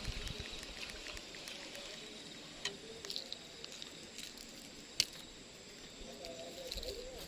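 Quiet outdoor background with a few sharp clicks, the loudest about five seconds in.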